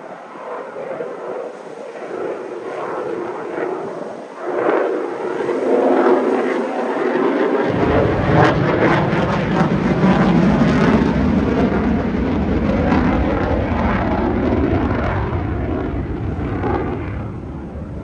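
Fighter jet flying past overhead: the engine noise builds over several seconds, a deep low rumble joins it about eight seconds in, and it eases off slightly near the end.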